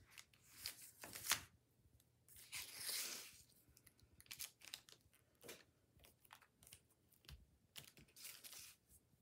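Faint handling sounds of rubber stamping: light taps and clicks as a black ink pad is dabbed onto a rubber stamp, and a soft brushing rub about three seconds in as the stamp is pressed and rubbed down onto paper.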